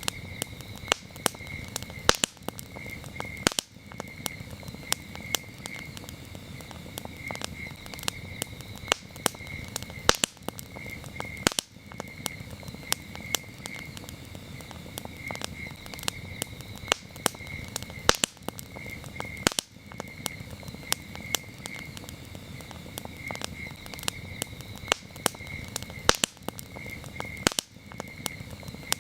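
Campfire crackling, with frequent sharp pops over a low steady rush of the burning wood. Crickets chirp steadily in a high, pulsing trill underneath.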